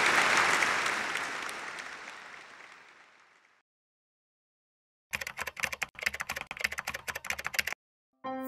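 Recorded applause fading out over about three and a half seconds. After a short silence comes about two and a half seconds of rapid computer-keyboard typing. A musical chime begins right at the end.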